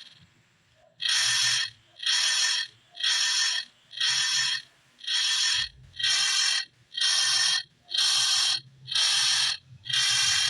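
Edited clock-ticking sound effect, heavily processed so each tick is drawn out into a half-second buzzy burst. The bursts repeat evenly, a little faster than one a second, starting about a second in after a short silence.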